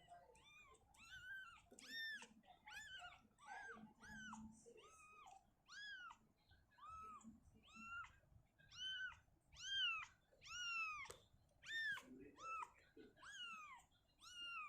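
A young kitten mewing over and over: short, high, arching cries, about one or two a second, loudest around ten seconds in.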